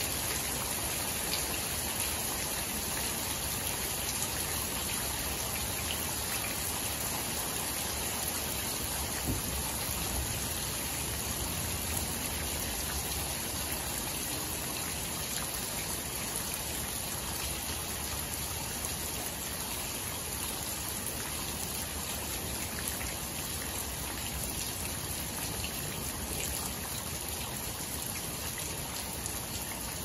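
Steady rain falling into puddles of standing water on waterlogged clay ground, with an occasional single louder drop.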